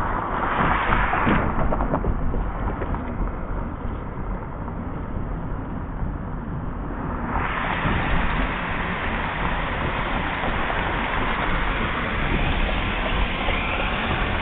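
Road noise from inside a moving car: a steady low rumble with a rushing hiss over it. The hiss fades for several seconds and comes back about halfway through.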